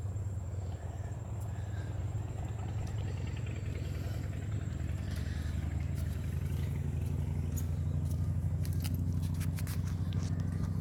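Low, steady engine-like drone that grows stronger about halfway through, with a few sharp clicks near the end.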